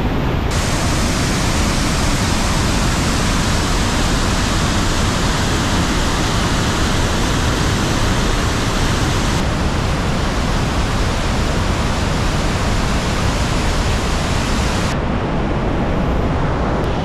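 Rushing water of a flood torrent pouring over sandstone cascades, a reservoir overflowing with heavy spring runoff: a loud, steady, even rush. Its high hiss changes abruptly about half a second in, about nine seconds in and near the end.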